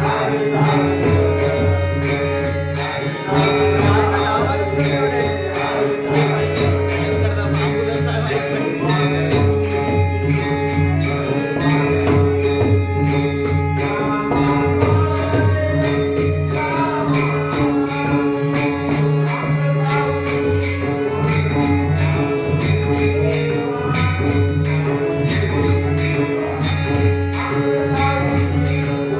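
Marathi devotional bhajan music: a steady beat of drum and jingling metal percussion over a held drone, with a wavering melody line at times.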